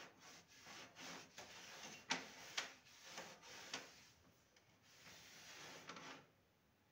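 Faint rubbing and shuffling of hands working along the top of a display cabinet, with three light knocks between about two and four seconds in.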